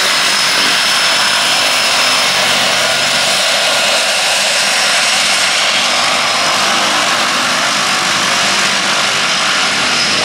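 de Havilland Canada DHC-6 Twin Otter's twin Pratt & Whitney PT6A turboprop engines running as it taxis close by. A loud, steady propeller drone with a high, steady turbine whine over it.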